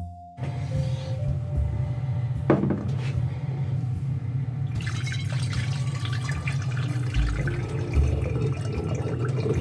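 Tap water running steadily, starting just after the start and cutting off near the end: water drawn for mixing a fresh batch of film-developing chemicals.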